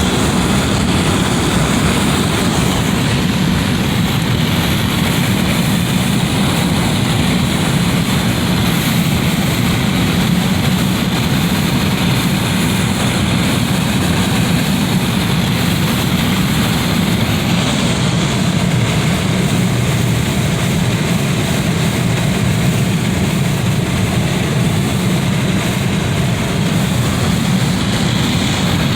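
Wind blowing through a window: a steady rushing noise with a deep low rumble, holding an even level throughout.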